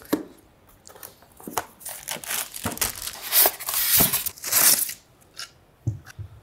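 A cardboard monitor box being unpacked: polystyrene foam packing rubbing and scraping against the cardboard as it is pulled out, with crinkling of packaging, in irregular bursts after a quiet first second.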